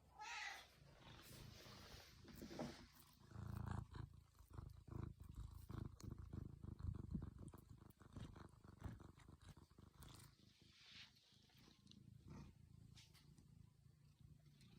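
Domestic cat gives one short meow at the start, then purrs with a low pulsing rumble that swells and fades, with a few soft licking clicks later on.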